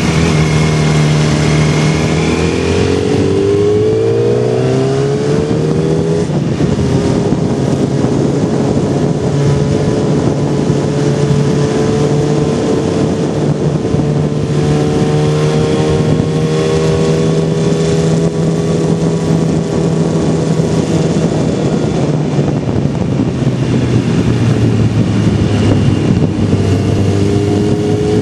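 Motorcycle engine under way, rising in revs from about two to six seconds in as it accelerates, then holding steady revs, with the revs shifting again near the end. Steady wind and road rush runs underneath.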